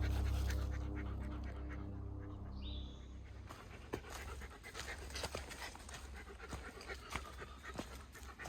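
Hiker's heavy panting breaths and footsteps crunching and clicking irregularly on a rocky trail. A low droning hum fades out over the first three seconds.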